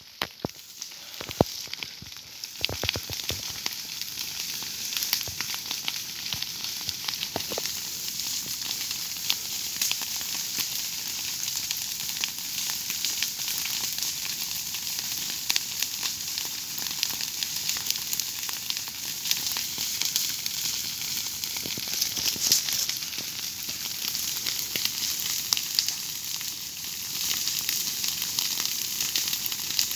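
Dry grass and leaf litter burning in an open ground fire: a dense, steady crackle of many small snaps and pops, with a few sharper pops in the first few seconds.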